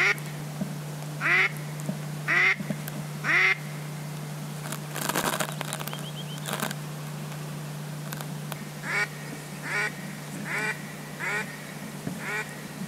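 Duck quacks blown on a mouth duck call: four loud quacks about a second apart, a brief rustle, then a run of five quieter quacks in quick succession.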